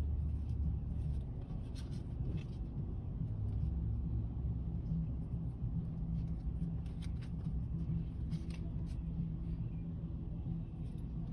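Low steady hum of a car engine idling, heard from inside the cabin, with a few light clicks and rustles scattered through.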